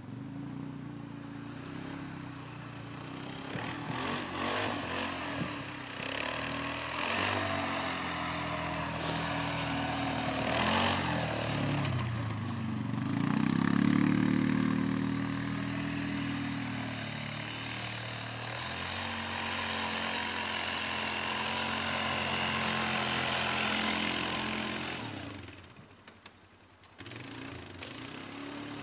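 Polaris 6x6 ATV engine running, revving up and back down about halfway through, with a rushing hiss over it. The sound drops away briefly near the end, then picks up again.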